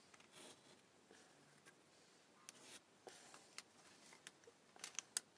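Near silence with faint scratching and light ticks: a pencil marking a thin wooden strip and the wooden strips being handled on the workbench, with a few small clicks and taps in the last second or two.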